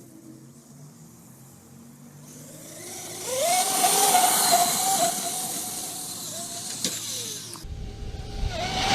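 Traxxas UDR RC truck's electric motor whining over a loud hiss of tyres and flung dirt as it drives in close. The sound builds about two and a half seconds in, holds steady, and cuts off sharply near the end, leaving a low rumble and a sharp knock.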